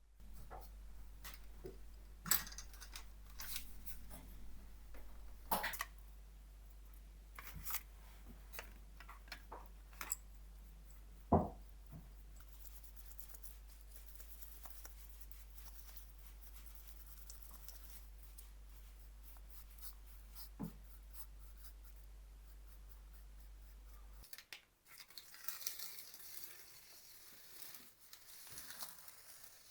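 Scattered small clicks, taps and knocks of things being handled, over a low steady hum that stops about three-quarters of the way through; a soft hiss with more small ticks follows near the end.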